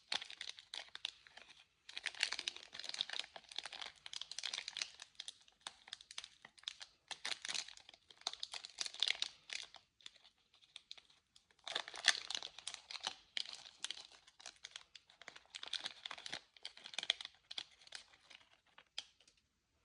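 Close-miked candy wrapper crinkling and tearing as candy is unwrapped, in runs of a few seconds with short pauses about two seconds in and about halfway, stopping just before the end.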